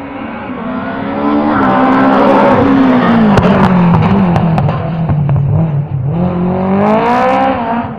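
A rally car's engine passing close at speed: the note climbs, drops through the middle as the car slows for the corner, then climbs again as it accelerates away. A few sharp cracks are heard around the middle of the pass.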